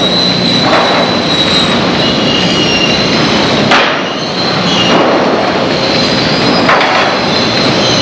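Sawmill lumber-handling machinery running: a loud, steady din of conveyors and rolls with high, steady whines and a low hum through it, and a sharp knock about three and a half seconds in.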